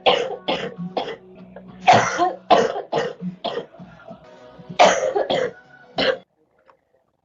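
A girl coughing in three fits, each of three or four harsh coughs in quick succession.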